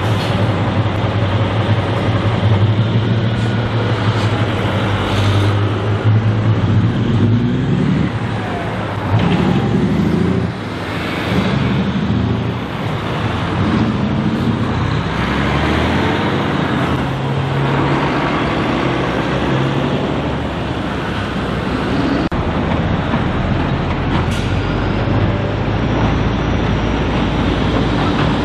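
Diesel engines of heavy trucks running and driving by, with road traffic noise; the low engine note rises and falls several times as the trucks change speed.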